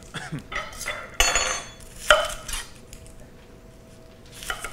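A chef's knife knocking and scraping on a cutting board as a red onion is trimmed and peeled: a few light knocks, a short ringing scrape a little over a second in, and a sharp knock at about two seconds.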